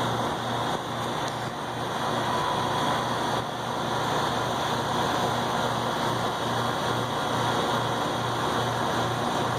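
Walk-in cooler's refrigeration condensing unit running steadily: compressor hum with a slight even pulsing, over the rush of the fan. The system is showing very low pressure, and the technician suspects it may be low on refrigerant.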